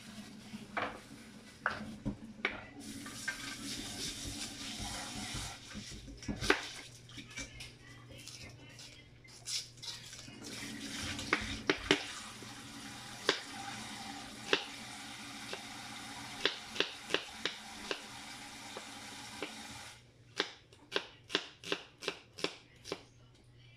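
Kitchen knife slicing onions on a wooden cutting board: irregular sharp knocks of the blade on the board, and near the end a steady run of chops about three a second. A steady hiss runs underneath from a few seconds in until shortly before the end.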